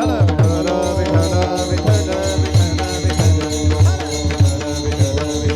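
Kirtan bhajan accompaniment: steady held notes under a hand drum beating a quick, even rhythm, with sharp metallic cymbal strikes on the beat.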